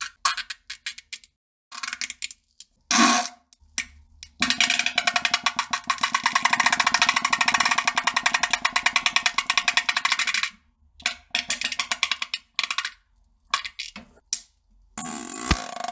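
Farting: several short blasts, then one long sputtering fart of about six seconds made of rapid fluttering pulses, followed by more short bursts.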